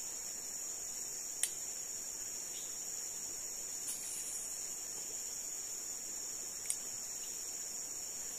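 Insects droning steadily at a high pitch, with a few faint clicks about one and a half, four and near seven seconds in.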